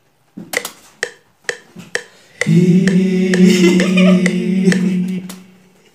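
Four sharp clicks about half a second apart, then a man sings one long, steady note for about three seconds, unaccompanied.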